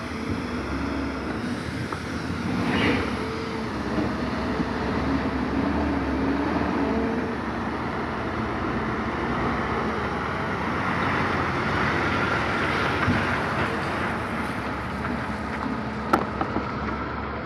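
Diesel engines of semi-trucks and wheeled material handlers running, with a truck driving up close and past. There is a single sharp knock near the end.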